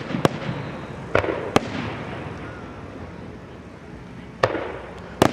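Aerial fireworks bursting overhead: about five sharp bangs at uneven intervals, three in the first two seconds and two near the end, each trailing off in a short rumble.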